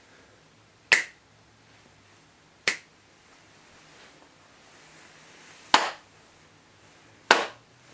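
Two sharp finger snaps about two seconds apart, followed by two hand claps about a second and a half apart.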